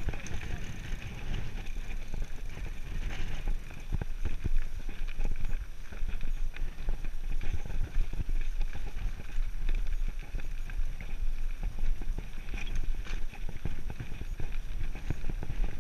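Mountain bike rolling along a rocky dirt singletrack: tyres crunching over gravel and stones, with frequent small clicks and rattles from the bike, over a steady low rumble.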